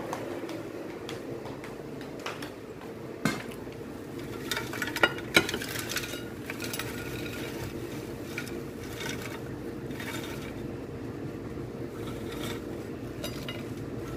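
Air fryer basket knocking and French fries rattling as they are tipped out onto a plate, with a few sharp knocks about three and five seconds in and lighter clicks between them, over a steady appliance hum.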